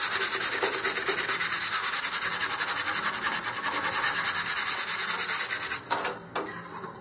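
120-grit sandpaper on a sanding block rubbing back and forth over a wooden rocket fin in rapid, even strokes, taking dried wood filler back down to the grain. The sanding stops about six seconds in, and a few faint scrapes follow.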